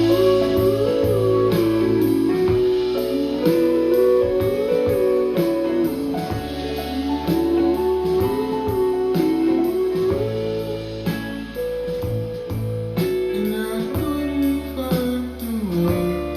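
Instrumental break in a pop song: a guitar lead plays a melody with sliding, bending notes over a bass line and a steady drum beat.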